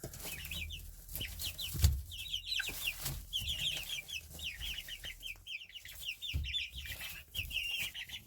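A group of young poultry peeping and cheeping continuously in quick runs of short, high, falling notes, with scattered soft knocks.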